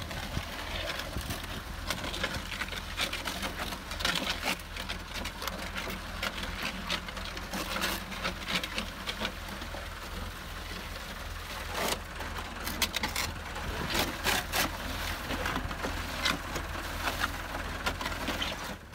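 Pan-type concrete mixer running with a steady low hum, its paddles churning wet concrete with gravel, giving constant rattling and scraping clicks as the batch empties through the chute into a wheelbarrow.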